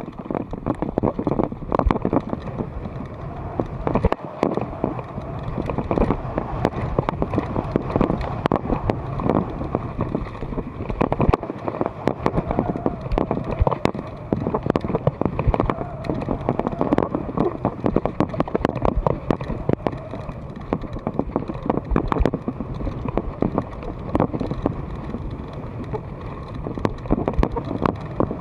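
Mountain bike ridden fast over a dirt trail: tyres on dirt and loose ground, with frequent irregular clatters and knocks from the bike over bumps, and wind buffeting the microphone.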